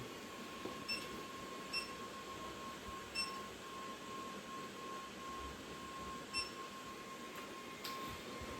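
A faint steady electronic whine, with four short high beeps, one about a second in, the next just under a second later, then at about three seconds and at about six and a half seconds.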